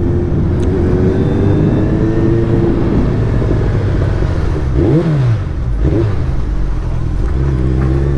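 Suzuki Hayabusa's inline-four engine running through its exhaust at low road speed, pitch rising and easing off, with a quick throttle blip about five seconds in.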